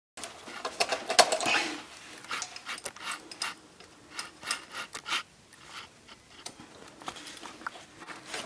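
Hands working among the wiring harness and parts in a car's engine bay: scattered light clicks, small knocks and rubbing at irregular intervals, busiest about a second in.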